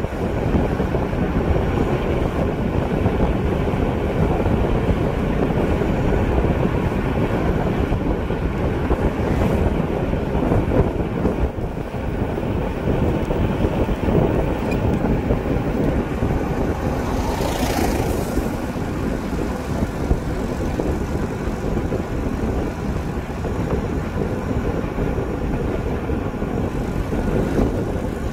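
Wind rushing over the microphone and road noise from a vehicle moving along an asphalt road, steady throughout, with a brief higher hiss about two-thirds of the way in.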